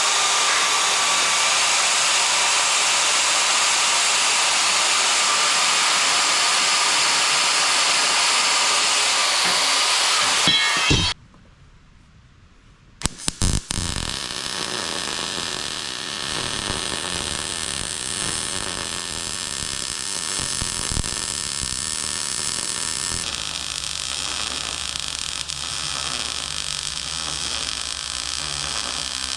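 Angle grinder grinding steel: a loud, steady, high-pitched whir for about eleven seconds that cuts off suddenly. After a short pause and a few sharp clicks, a quieter steady hiss carries on.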